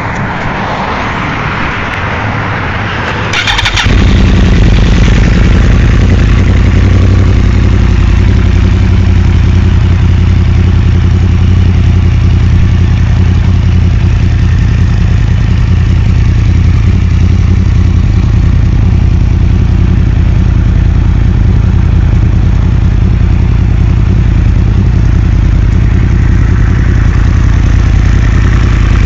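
Motorcycle engine starting about three and a half seconds in, then idling steadily with a deep, loud low note.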